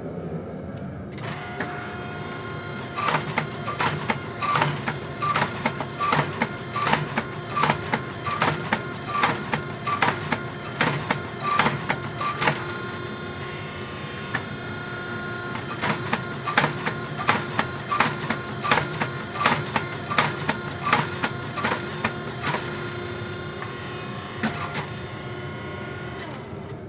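Hammer blows on a hot steel billet, about two to three sharp ringing strikes a second, in two runs with a pause between them, as the billet is worked flat and straight. A steady hum of shop machinery runs beneath the strikes.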